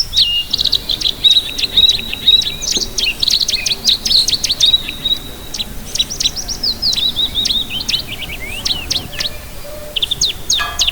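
Many small caged birds chirping and twittering together, a dense, unbroken mix of quick high chirps and short whistles.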